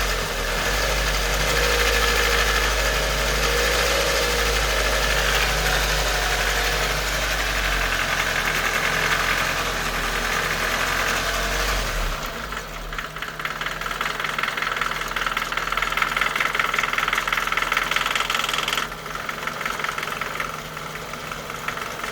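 Nissan Micra K11's 1.3-litre CG13DE four-cylinder engine idling warm, with a rapid light ticking over the running. About twelve seconds in the deep hum drops away and the ticking stands out more plainly. The tick comes only at idle at operating temperature, on fresh 10W-40 oil.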